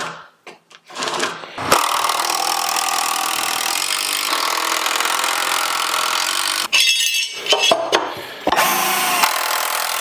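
A power tool working wood runs steadily for about five seconds, stops briefly, comes back in a few short bursts, and then runs steadily again.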